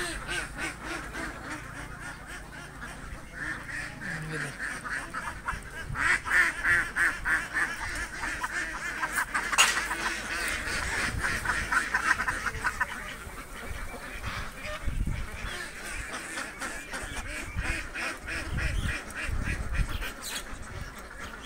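A flock of domestic ducks quacking, in quick runs of calls that grow dense and loud in the middle.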